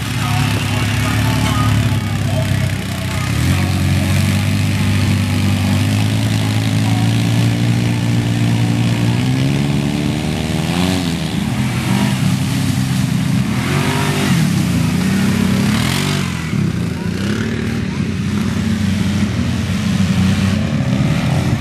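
Off-road vehicle engines, a side-by-side UTV and ATVs, running as they drive through muddy water. The engine note holds steady, then climbs in pitch about nine seconds in as one revs up, and it is rougher and more uneven after that.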